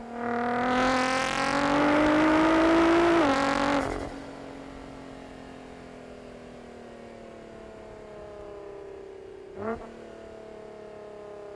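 Nissan GT-R Nismo's twin-turbo VR38 V6 accelerating hard, rising in pitch with a quick upshift about three seconds in, then easing off to a quieter, slowly falling cruise drone. A short sharp burst comes near the end.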